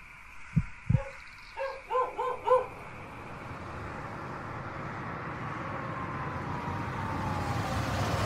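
Two low thumps in the first second, then a dog barking four or five times in quick succession about two seconds in. After that, a car approaches, its noise growing steadily louder.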